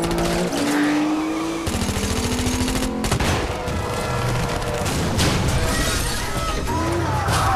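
Car-chase sound mix: a car engine revving up, then a rapid burst of automatic gunfire, a heavy crash at about three seconds, and then tyres skidding with engines running.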